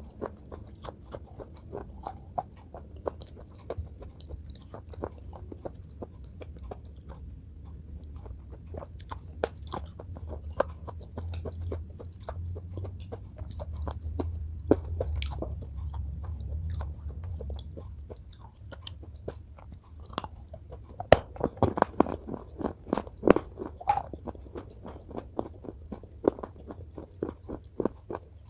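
Close-miked crunching and chewing of something brittle, a dense run of sharp crackles with a low rumble in the middle stretch; the crunches grow louder and crisper about 21 seconds in.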